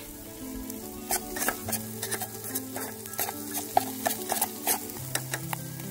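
A knife stirring chopped ginger, green chilli and garlic frying in a little oil in a small camping pot, with irregular light clicks and scrapes against the pot over a soft sizzle. Quiet background music with held notes plays underneath.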